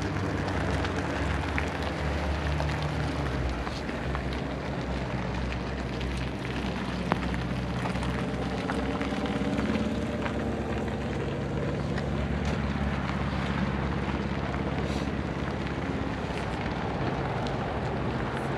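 A vehicle engine idling steadily, with outdoor background noise and a single faint click about seven seconds in.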